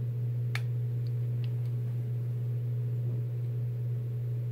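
Steady low electrical hum from the electric hot plate as it heats, with one light click about half a second in.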